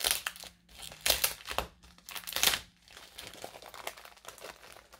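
Padded plastic mailer envelope crinkling as it is handled, in three loud rustles over the first two and a half seconds, then softer rustling.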